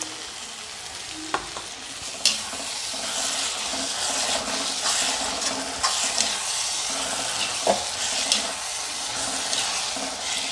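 Onion and tomato masala sizzling in a wide black frying pan as a freshly added spoonful of yogurt is stirred in, the metal slotted spoon scraping round the pan. Several sharp clicks come where the spoon knocks against the pan.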